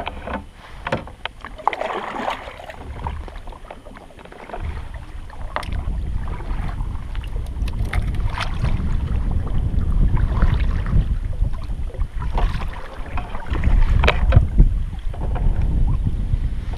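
Kayak paddle strokes in the water, a stroke every couple of seconds, over wind rumbling on the microphone from about four seconds in. Small clicks and knocks in the first few seconds.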